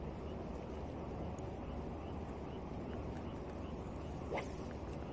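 Steady low rushing ambience from the estuary water around a wading angler, with faint regular ticking about three times a second. One short sharp click sounds about four seconds in.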